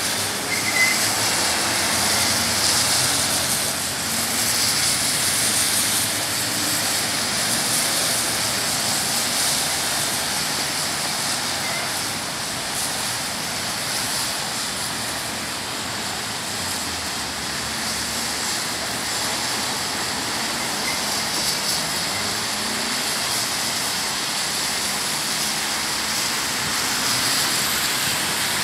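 Steady hiss of traffic driving on rain-wet streets, tyres swishing through water, with no single loud event.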